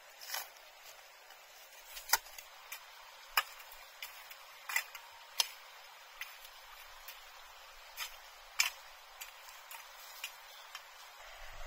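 A series of short, sharp knocks and clicks at uneven intervals, about a dozen in all, a few much louder than the rest.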